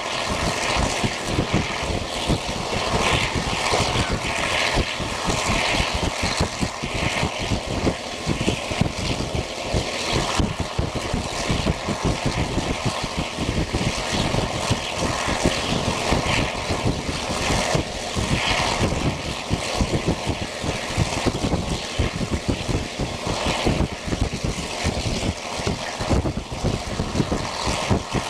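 Wind rushing and buffeting through the open window of an old-type passenger coach running at speed, loud and unsteady throughout.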